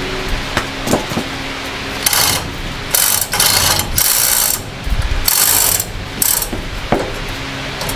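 A ratcheting metal mechanism clicking in five or six short bursts of about half a second each, over a steady low hum.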